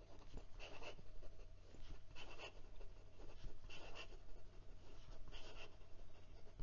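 HongDian 6013 fountain pen with a bent Fude nib scratching across lined notebook paper in quick cursive strokes, a short scratchy stroke sound about every second and a half, four in all.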